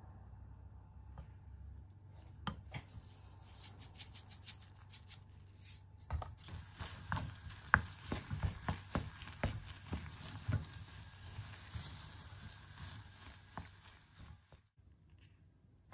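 Kitchen knife chopping on a cutting board: a few light taps, then a run of heavier chops, about two or three a second, loudest near the middle and thinning out toward the end.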